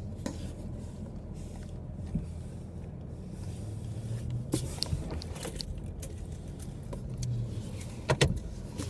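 Steady low rumble of engine and road noise inside a moving car's cabin. A few brief knocks and clicks come about halfway and again near the end as the phone doing the filming is jostled in its makeshift spot.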